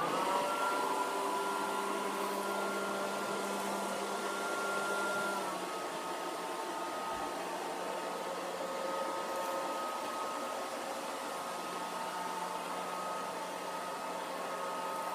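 Kitfort KT-503 robot vacuum running, its fan motor spinning up and then holding a steady whine over a rushing noise. About five seconds in the whine drops slightly in pitch and stays there.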